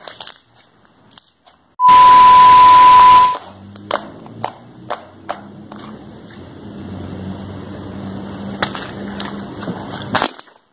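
A loud burst of hiss with a steady high beep lasts about a second and a half, starting about two seconds in. Then fluffy slime is squeezed and stretched by hand, giving soft crackles and pops over a low hum.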